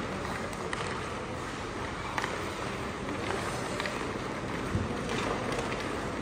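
Ice hockey rink sounds: skate blades scraping on the ice under a steady hiss, with a few sharp clacks of sticks and puck.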